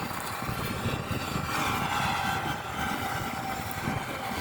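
Harvest machinery running steadily: a continuous engine drone, joined about a second and a half in by a steady high whine.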